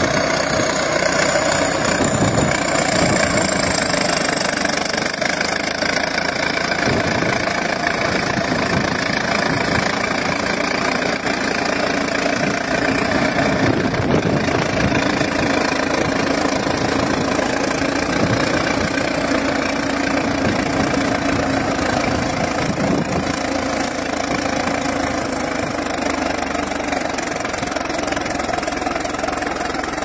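Crawler bulldozer's diesel engine running steadily under load as the dozer pushes earth with its blade. A thin high whine rises slightly over the first few seconds and then holds.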